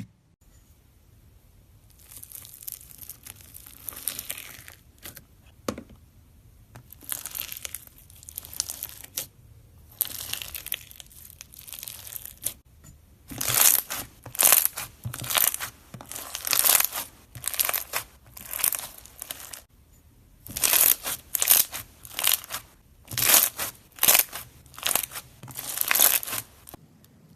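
Crunchy slime being squeezed and pressed by hand, crackling and crunching. About halfway through it turns into a run of loud, rhythmic crunches, about one and a half a second, with a short pause in the middle.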